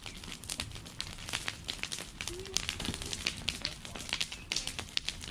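Wood bonfire burning, crackling with frequent sharp pops and snaps.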